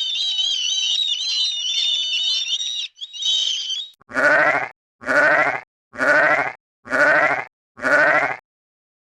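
Five quavering bleats from a sheep or goat, evenly spaced about a second apart, starting about four seconds in. They are preceded by about three seconds of a high, wavering squeal-like call.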